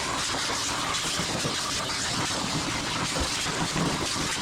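Steady, loud rushing of air with no pitch or rhythm, the sound of lint being blown or sucked out of the dryer during clean-out.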